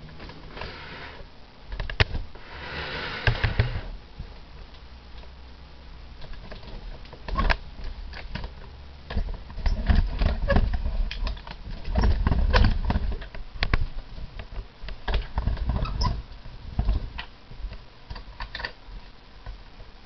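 Handling noise: irregular clicks and knocks with low rumbling thumps, as the hand-held camera is moved and rubbed, and a brief rustle about three seconds in.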